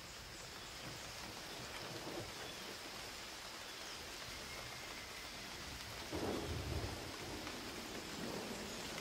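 Steady rain falling, with a low roll of thunder swelling about six seconds in.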